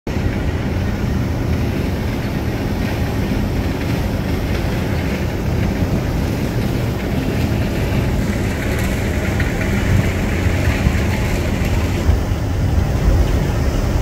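Wall-mounted outdoor air-conditioner condensing units running with a steady low hum and rushing fan noise.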